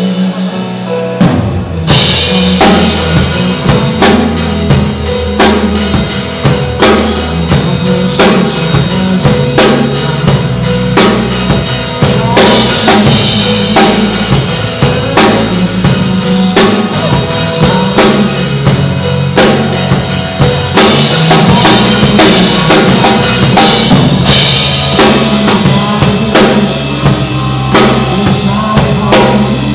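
Acoustic drum kit played live along with a pop-song backing track: bass drum, snare and cymbals keeping a steady beat over the recorded instruments, with no vocals. The full kit comes in with a cymbal crash about two seconds in.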